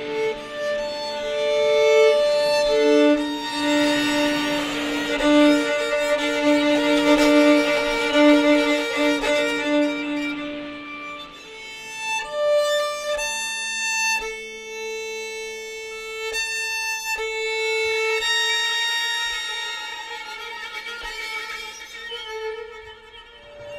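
Two violins playing long bowed notes, with a grainy, noisy layer over the first half that clears to plain held tones about halfway through.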